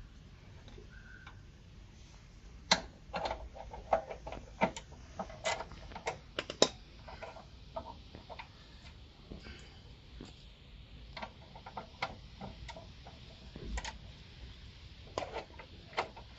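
Irregular runs of sharp metal clicks and clinks from a wrench working a suspension nut loose, with a few louder clinks among them.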